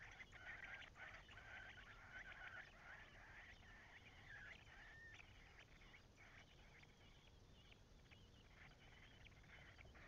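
Faint, busy chirping of nestling songbirds begging in the nest, many short high calls overlapping, thickest in the first half.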